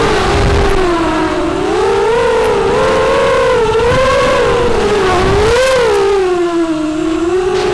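Racing quadcopter's Cobra 2206 2100 KV brushless motors spinning 6x4 props: a loud buzzing whine that rises and falls in pitch as the throttle changes through hard banks and turns. It dips lowest shortly before the end, then climbs again. Low rushes of wind on the onboard microphone come near the start and again about five seconds in.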